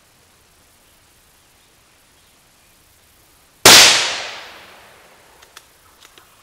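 A single shotgun shot at a gobbler, about three and a half seconds in: one sharp blast that echoes away through the woods over a second or so. A few faint clicks follow near the end.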